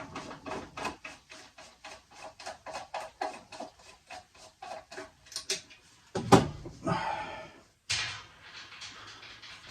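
Rapid, regular metallic clicking, about four or five clicks a second, from hand work on an old metal-cased distribution board. A sharp knock comes about six seconds in, followed by scraping and rustling.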